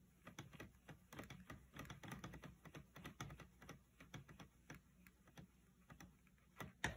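Faint rapid ticking and scratching of a paintbrush scrubbed in a cake of a plastic watercolour set, picking up yellow paint. The ticks thin out near the end, and one sharper click comes just before it stops.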